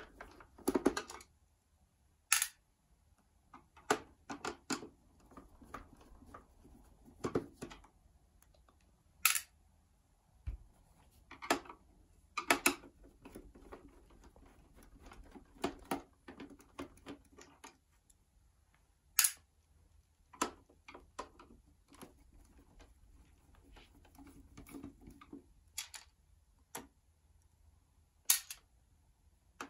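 Irregular clicks and light knocks from a screwdriver, screws and the plastic housing and cover panels of an NEC M300X projector being taken apart by hand. About fifteen short clicks, spaced unevenly, with the sharpest ones several seconds apart.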